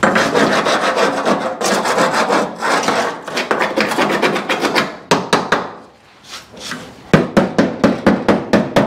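Hand scraping on the car's bodywork in quick back-and-forth strokes, about five or six a second. The strokes pause for about two seconds midway, then resume.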